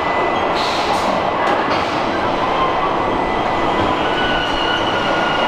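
Steady mechanical din of a robotic car-body welding line: a dense, even noise with faint high whines at several pitches coming and going, and a few short hisses in the first two seconds.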